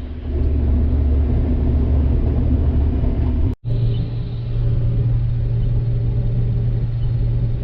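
Diesel engine of farm harvest machinery running steadily with a low hum. An edit about three and a half seconds in changes it to a different, steadier engine tone.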